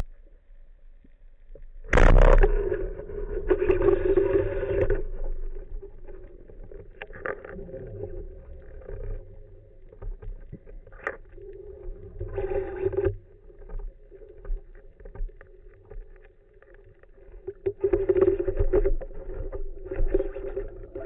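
Underwater sound picked up through a waterproof camera housing: a low, steady hum at one pitch that swells and fades several times, with a sharp knock about two seconds in.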